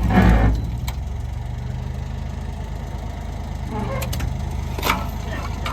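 An engine idling steadily, with a few sharp metal knocks about a second in and again around four and five seconds.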